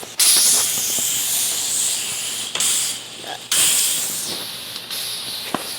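Softwash spray wand hissing as it sprays cleaning solution at low pressure onto brick siding to kill green algae. The spray starts just after the beginning, drops out briefly about halfway through, then resumes.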